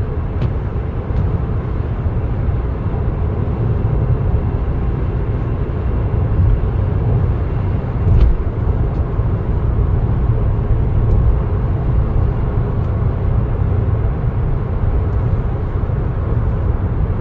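Steady low rumble of a car driving along, engine and tyre noise, with a brief knock about eight seconds in.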